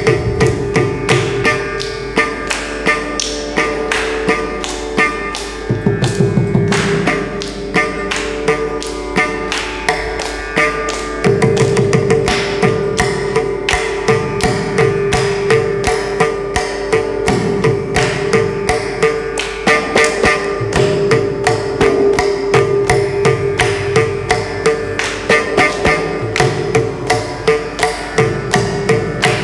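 Carnatic classical ensemble playing: a violin melody with rapid mridangam drum strokes over a steady drone.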